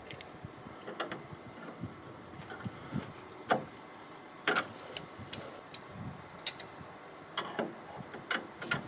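Irregular light clicks and knocks, about a dozen, from tools and small hardware being handled: sharp taps rather than a steady rhythm, the loudest about three and a half seconds in.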